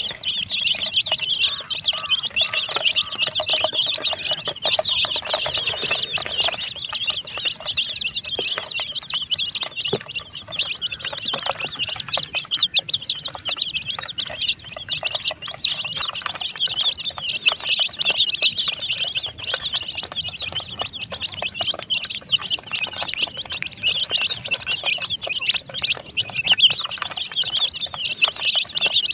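A flock of baby chicks peeping nonstop, many high chirps overlapping into a steady chorus.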